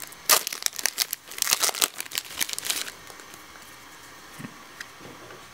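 Foil wrapper of a Yu-Gi-Oh! trading-card booster pack crinkling and tearing as it is ripped open, in quick bursts for about three seconds. After that there is only faint handling of the cards.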